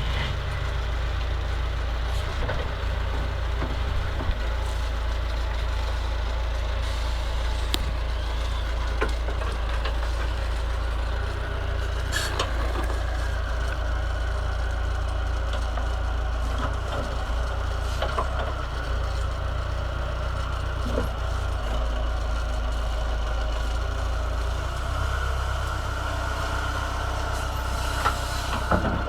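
Massey Ferguson 50HX backhoe loader's diesel engine running steadily, with occasional sharp knocks and clanks.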